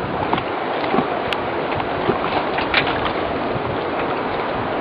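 Steady rush of wind and sea water around a sailboat, with a few light knocks.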